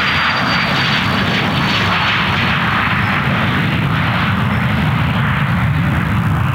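Cessna CJ2+ business jet's twin Williams FJ44 turbofan engines running loud at high power: a steady jet rush with a low rumble and a thin high whine that slowly falls in pitch.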